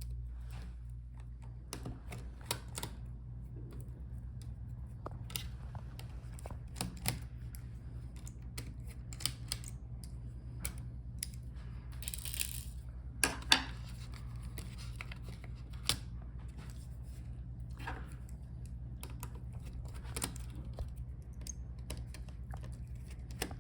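Scattered light clicks and taps of a small screwdriver and tiny screws on the laptop's plastic and metal palmrest as the touchpad screws are taken out, with a sharper pair of clicks about halfway through, over a steady low hum.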